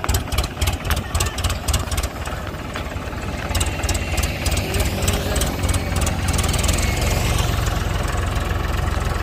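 Tractor engine running, pulsing unevenly for about two seconds and then settling into a steadier run.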